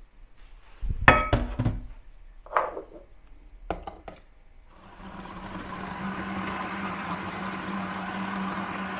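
A few knocks and clinks of kitchenware, then about five seconds in a hand blender's motor on its chopper bowl starts and runs steadily, blending raw turkey breast into a smooth sausage paste.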